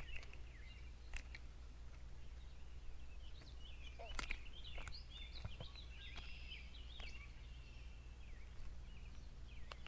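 Songbirds chirping and singing on and off, with a few sharp light clicks while a crappie is unhooked by hand.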